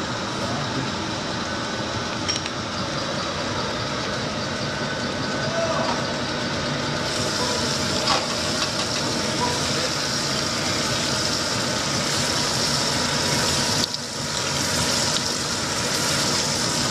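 Crankshaft grinding machine running, its grinding wheel working a crankpin (connecting-rod journal) under coolant: a steady machine hum with a hiss that turns brighter about seven seconds in.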